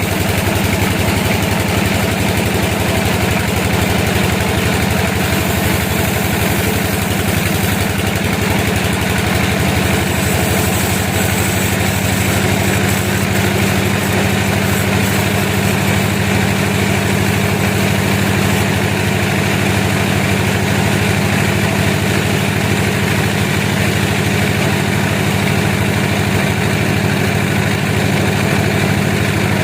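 Sawmill's engine running steadily at an even speed, a low, constant machine sound with a fast regular pulse.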